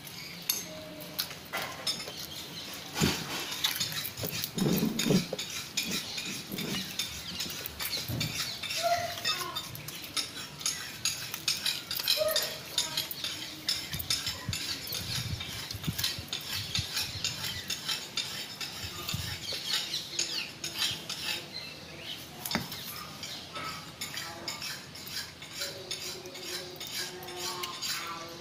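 A knife cutting and scraping at a whole fish's head and gills while it is cleaned, a dense run of small scratches and clicks with an occasional clink of metal.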